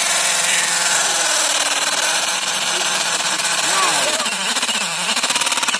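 Cordless drill running under load as it bores into the ground, its battery on its last charge; the sound pulses in the last second and cuts off suddenly.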